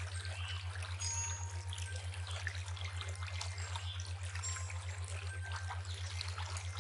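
River water trickling and gurgling, with many small drips and splashes. Under it a low hum pulses rapidly and evenly throughout.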